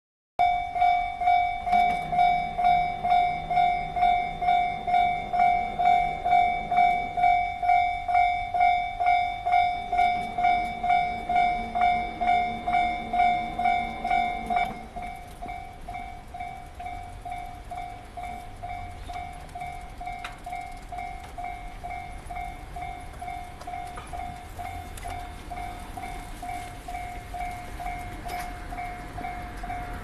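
Japanese railway level-crossing warning bell ringing, an electronic ding repeating about two and a half times a second on one steady pitch. About halfway through it drops to a much lower volume and keeps ringing.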